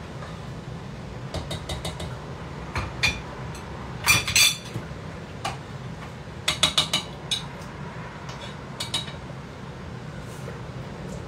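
A metal spoon clinking and scraping against a steel cooking pot, in short clusters of quick clinks, loudest about four seconds in, over a steady low hum.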